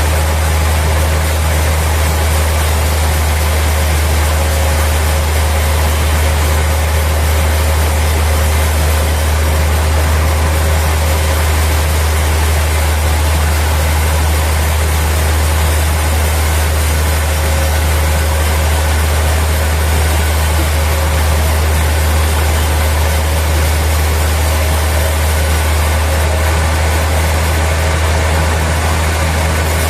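Sawmill machinery running steadily: a constant low engine drone under an even hiss, with no change in speed or load.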